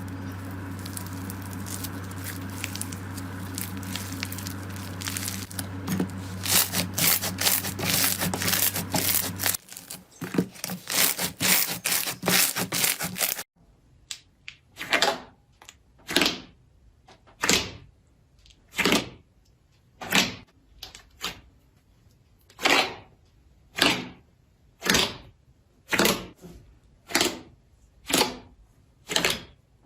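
Slime being squished and pressed by hand: a dense run of sticky clicks and crackles over a low steady hum that stops about ten seconds in. After a cut, single sharp pops come about once a second.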